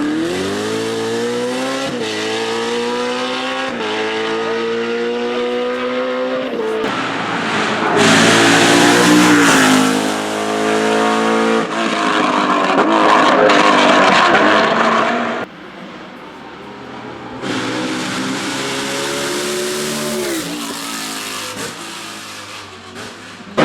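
BMW Z4 GT3's naturally aspirated V8 racing engine accelerating hard, its revs climbing and dropping with quick upshifts about every two seconds. The engine gets louder as the car comes close, and its revs fall as it slows. The sound cuts abruptly between several takes of the car climbing through the gears.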